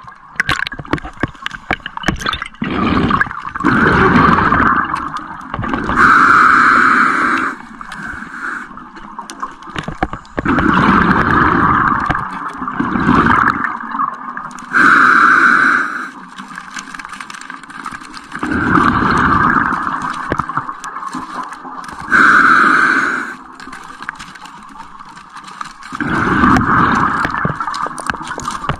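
Scuba diver breathing through a regulator: a short hissing inhale alternates with a longer bubbling exhale, about four full breaths. Scattered clicks and scrapes sound between them.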